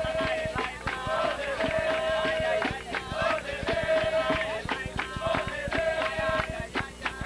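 Capoeira music: voices singing together in long held notes over fast, steady hand percussion.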